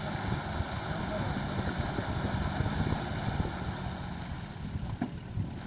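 ATV (quad bike) engine running at a steady pitch.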